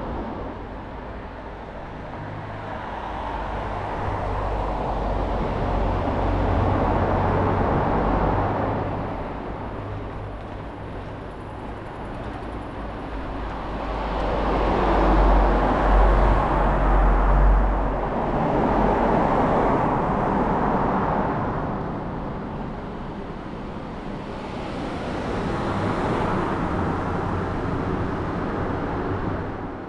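Road traffic passing close by, several vehicles going by one after another, each swelling up and fading away; the loudest passes about halfway through with a low rumble.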